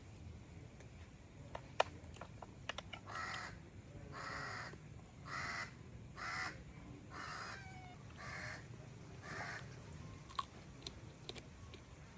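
A bird giving a series of about seven harsh, noisy calls, roughly one a second, with a few faint sharp clicks before and after.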